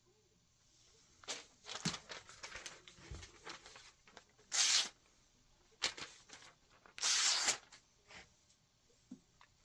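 A freshly sharpened kitchen knife slicing through paper: a run of short rustling cuts, with two louder, longer slices about four and a half and seven seconds in.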